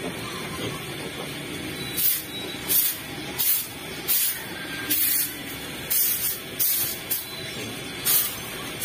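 Repeated short, hissing scrapes of a tool over the concrete floor of a pig pen, about ten strokes at roughly one every 0.7 s, starting about two seconds in.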